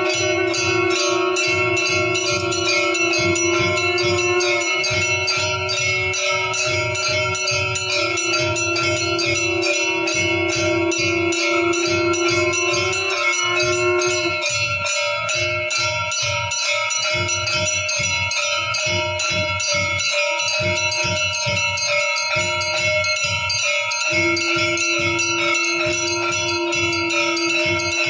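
Temple bells ringing for aarti in rapid, continuous strikes, over a steady held tone that breaks up in the middle and returns near the end.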